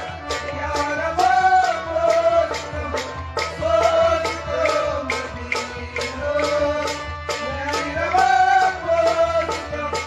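Kashmiri naat: a man's voice singing a devotional melody over a harmonium, with a steady beat of sharp percussion strikes about three a second.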